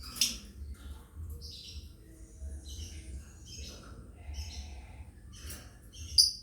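Lovebirds chirping and squawking: a run of short, high chirps, with two sharp, louder calls, one just after the start and one near the end, over a low steady hum.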